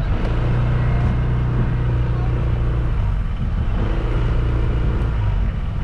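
Motor vehicle engine running as it drives along, its pitch shifting slightly a couple of times.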